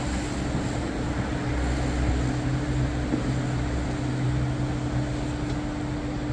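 Steady drone of the city heard from a high-rise balcony: an even rushing noise with a constant low mechanical hum held at one pitch.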